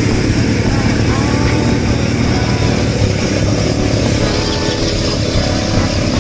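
Several ATV engines idling, a steady low running with no clear revving.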